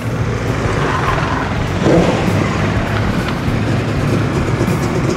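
A motor vehicle engine running steadily, mixed with background music.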